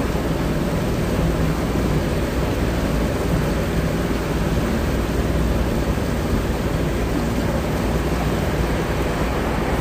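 A boat under way: its engine drones steadily beneath a constant rushing noise of wind and water.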